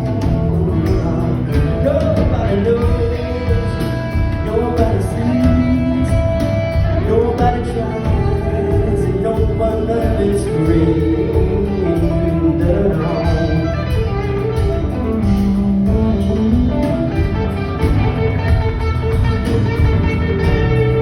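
Live country band playing a ballad: guitars and steady drums, with a bending melodic lead line carried over them.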